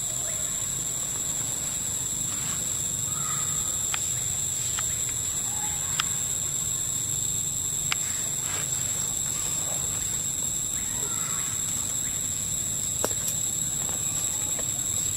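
Steady, high-pitched insect drone in a forest, with a few sharp clicks now and then and faint short chirps.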